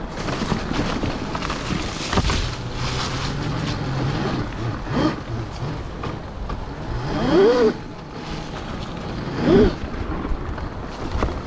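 Kawasaki KX85 converted to a 72 V electric motor, ridden off-road: wind rushes over the in-ear microphones and knocks come from the rough ground. Twice in the second half the motor's whine rises in pitch as the throttle opens.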